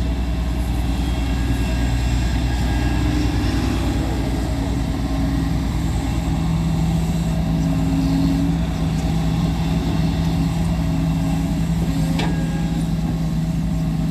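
Diesel engine of heavy construction machinery running steadily. A steady hum tone sets in about six seconds in.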